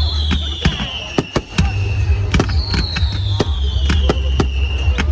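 Fireworks going off: a rapid, irregular series of sharp bangs and cracks, with two long whistles falling in pitch. The first whistle ends about two seconds in; the second starts soon after and fades out near the end.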